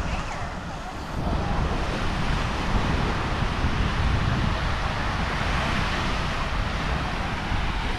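Wind buffeting the microphone over the steady wash of sea surf, getting louder about a second in.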